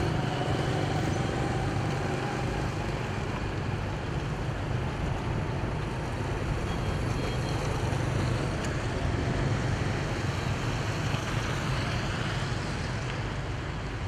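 Steady road-traffic noise: a continuous low hum under an even hiss.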